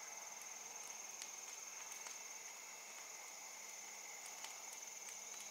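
Evening insect chorus: crickets trilling steadily in an unbroken drone, with faint scattered ticks and crackles from a small campfire burning in a fire ring.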